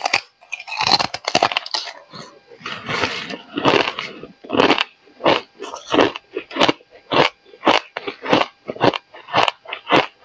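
A person biting into and chewing a piece of coloured moulded ice, crunching it between the teeth: a dense run of crunches about a second in, then steady chewing crunches about two a second.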